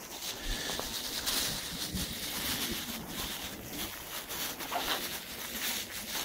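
Horses snuffling and breathing close by, amid rustling noise.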